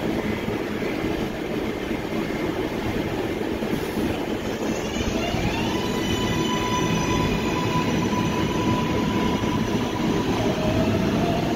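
New York City Subway 7 train of R188 cars pulling out of an underground station: a steady rumble of wheels on rail, with the propulsion whine rising in pitch about five seconds in and then holding, and another rising tone near the end as it accelerates away.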